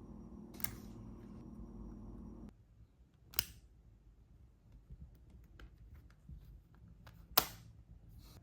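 Three sharp clicks a few seconds apart, the last the loudest, with a few fainter ticks between them. A low steady hum cuts off after about two and a half seconds.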